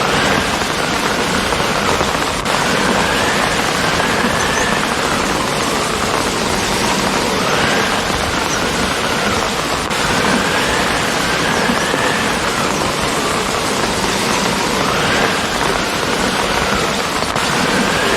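Steady, heavy rain falling, a dense even hiss of drops. A faint wavering tone rises and falls over and over behind it.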